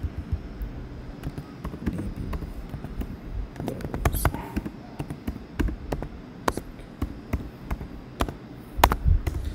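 Typing on a computer keyboard: irregular key clicks, some in quick runs, with a louder clack near the end.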